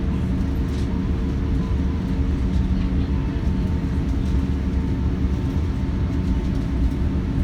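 Cabin noise inside an Airbus A380 taxiing on the ground: a steady low rumble with the engines' even hum, a few held tones over it.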